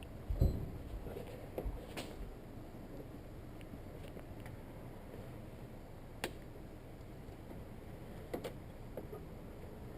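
Scattered light clicks and knocks over a faint steady background, with one low thump about half a second in: hand work with tools and parts in a car's engine bay.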